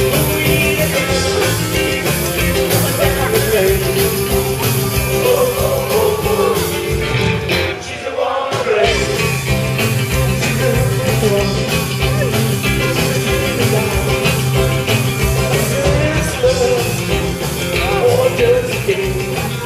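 Live neo-rockabilly band playing: a male vocalist singing over electric guitars, bass and drums. The bass and drums drop out briefly about eight seconds in, then the band comes back in.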